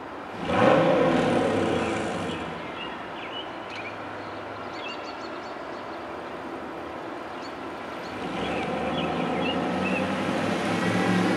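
Pontiac Trans Am V8 through an SLP Loudmouth exhaust. It is blipped hard once about half a second in and settles back to a steady idle. Near the end it pulls away and accelerates, growing louder.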